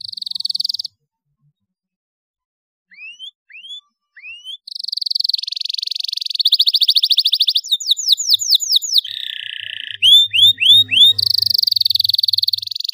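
Domestic canary singing. A short trill and a few rising chirps with a pause of about two seconds between them, then from about five seconds in a long, unbroken song of rapid trills and quickly repeated sweeping notes.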